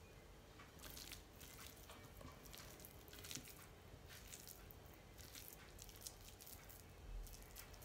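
Faint, soft squishing and crackling of moist cooked grated-carrot mixture (with butter, milk powder and sugar) being squeezed and packed by hand into a ladoo ball, in irregular little ticks, with a soft low bump near the end.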